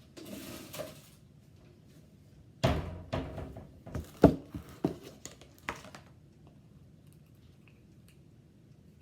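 A brief rustle, then a run of knocks and clatters lasting about three seconds, the loudest near the middle: kitchen containers and a measuring cup being handled while sugar is measured out.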